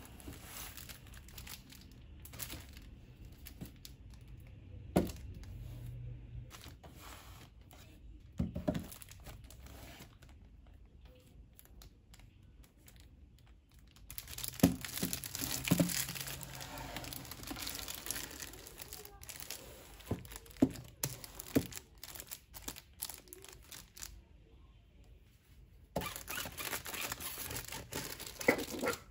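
Manga volumes being handled and shifted on a shelf: scattered light knocks of books against the shelf and each other, with stretches of crinkling about halfway through and again near the end.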